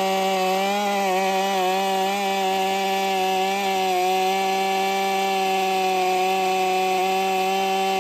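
Two-stroke chainsaw engine running near full throttle, most likely bucking wood, holding a high steady pitch. The pitch wavers slightly about a second in and dips briefly at about four seconds as the saw takes load.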